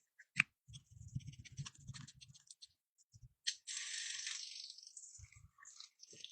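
Makeup items being handled: small clicks, rattles and rustling, then a hiss lasting about a second and a half from about three and a half seconds in, fading away.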